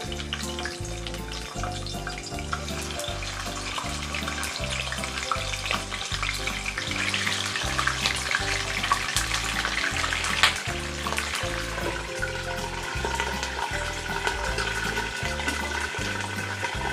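Chicken wings frying in hot cooking oil under a glass lid: a steady sizzle with dense crackling spatter and a sharp pop about ten seconds in.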